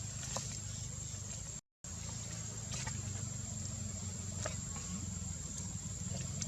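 A steady low hum like an idling engine, with a thin high steady whine and a few faint clicks; the sound cuts out for a moment just under two seconds in.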